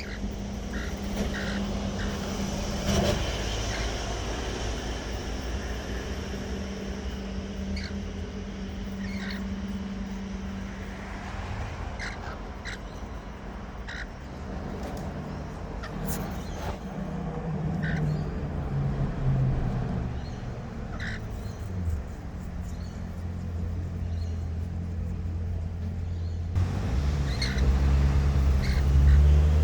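Scattered short bird calls over a steady low engine rumble, which grows louder near the end.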